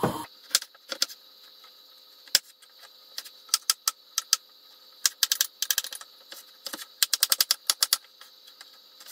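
Kitchen knife dicing a carrot on a wooden cutting board: sharp knocks of the blade striking the board, a few single strokes and then quick runs of several chops in a row.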